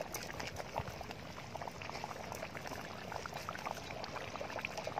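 Crab curry in coconut milk bubbling at a boil in a metal pot, a dense run of small irregular pops.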